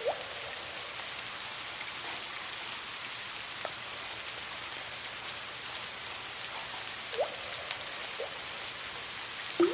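Steady soft rain hiss with occasional single water drips plinking, about five in all, the loudest near the end.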